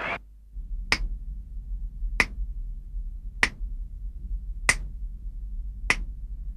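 Five finger snaps at a slow, even tempo, about one every second and a quarter, over a faint low hum.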